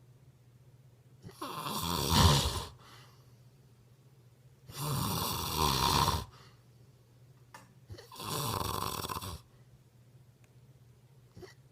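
Snoring: three long snores about three seconds apart, each lasting about a second and a half.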